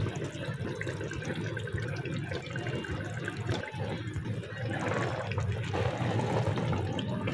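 Chickpea curry bubbling in a pot on a gas stove, a steady wet simmer over a continuous low rumble. It grows a little louder about five seconds in, as a wooden spoon starts stirring the thick gravy.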